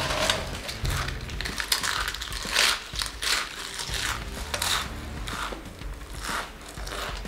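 Doritos tortilla chips crunching as a mouthful is chewed fast. A dry crunch comes roughly every second.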